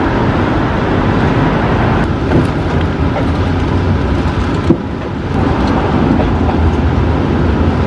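Steady street traffic noise, loud and heavy in the low end, with one sharp click a little past the middle.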